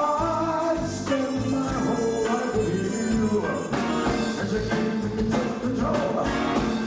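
Live band with a horn section playing an upbeat tune over a steady drum beat, a lead melody line sliding up into a held note at the start.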